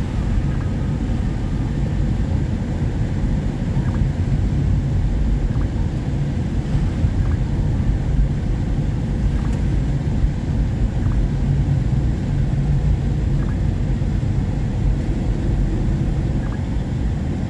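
Steady low rumble of a car driving on wet, flooded roads in heavy rain, heard from inside the cabin, with a few faint scattered ticks.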